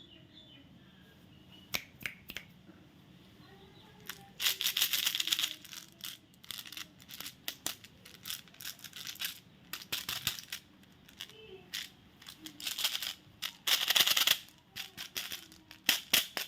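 Candy and chocolate packaging being handled and opened by hand: bursts of wrapper crinkling and tearing, with scattered small clicks and rattles of the sweets.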